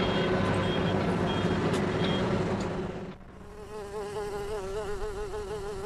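Steady traffic and city noise with a faint high beep repeating about twice a second. About three seconds in it gives way to bees buzzing, a drone that wavers up and down in pitch.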